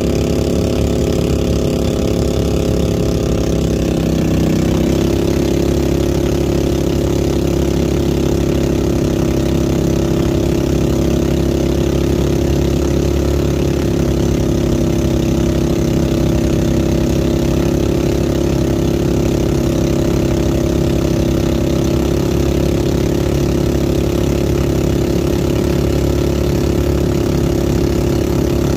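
Small engine of a motorized bangka running steadily and loudly, its pitch stepping up slightly about four seconds in and then holding.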